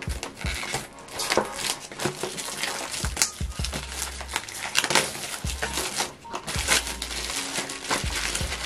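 Alarm clock packaging being handled and opened by hand: irregular crinkling and rustling with many sharp crackles.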